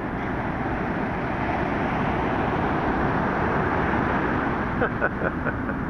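Steady, dense roar of heavy surf breaking on the beach, with wind on the microphone. A brief voice is heard about five seconds in.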